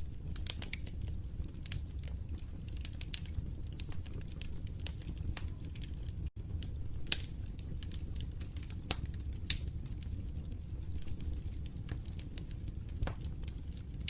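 Wood fire in a fireplace crackling, with sharp pops at irregular intervals over a steady low rumble of flames. The sound drops out for a split second about six seconds in.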